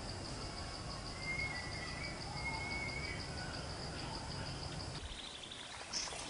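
Outdoor ambience: a steady, rapidly pulsing high insect trill over a low rumble, with a few short bird chirps about a second or two in. The trill and rumble cut off about five seconds in.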